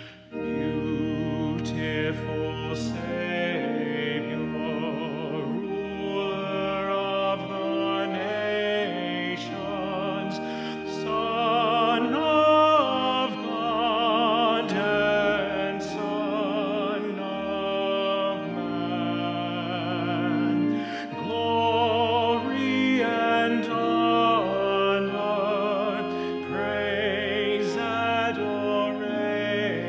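Church music: a solo singer with strong vibrato sings a slow melody over held instrumental accompaniment.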